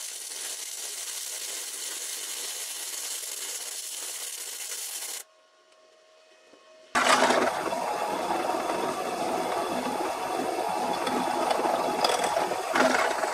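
Electric welding arc hissing steadily while a steel container is welded shut, cutting off about five seconds in. After a short lull, a louder drill press runs as its bit drills into the steel container.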